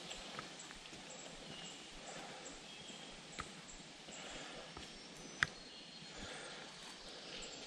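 Hikers' footsteps on a forest trail, with a few sharp clicks, the loudest about five and a half seconds in, over a faint outdoor background with a few faint high chirps.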